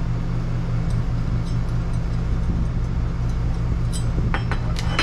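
A steady low hum underneath, with a few light metallic clinks about four seconds in as a square steel-tube bracket with rivet nuts is handled and set down on a workbench.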